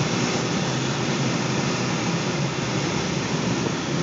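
Steady rush of air streaming over the canopy and fuselage of a Grob G 103 glider in flight, heard from inside the cockpit.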